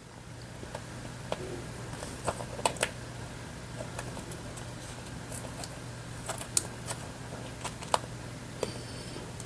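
Scattered small clicks and scratches of fingernails and a pen-like tool picking at the edge of a freshly cut, laminated sticker sheet on a cutting mat, over a faint low steady hum.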